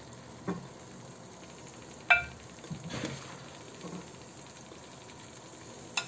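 Serving spoon scooping thick curry and knocking against a glass serving bowl and the pan: one sharp, briefly ringing clink about two seconds in, with a few softer taps and scrapes around it.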